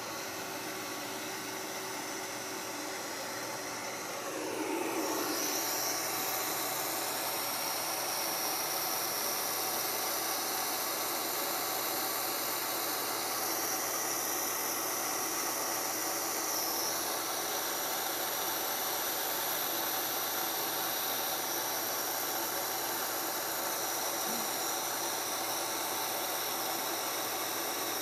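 Steady whirring hiss of a CNC sheet router's machinery running, growing louder after a falling sweep about four to five seconds in, with a high whine that shifts pitch a few times as the gantry is jogged into position.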